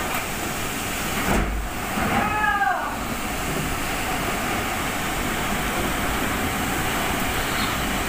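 Storm of strong wind and heavy rain: a loud, steady rush of noise. About two seconds in, a brief pitched cry rises and then falls in pitch.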